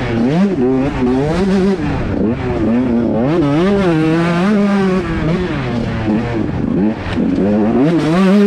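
125cc two-stroke motocross bike engine revving hard, its pitch climbing and dropping over and over as the throttle is worked and gears change.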